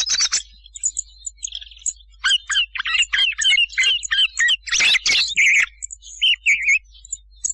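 Recorded thrush song played as a hunting lure call: a run of short, varied whistled and chirping phrases, with a brief buzzy note about a second and a half in and a louder burst of notes about five seconds in.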